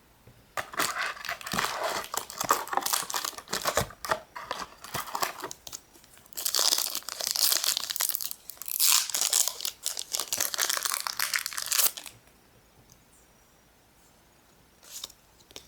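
Foil wrapper of a Pokémon EX Team Magma vs Team Aqua booster pack being torn open and crinkled: crackling bursts that stop about twelve seconds in, then one short rustle near the end.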